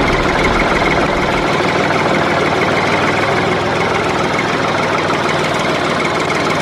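A small motor on a miniature model vehicle running steadily with a dense mechanical rattle; its deepest rumble drops away about a second and a half in.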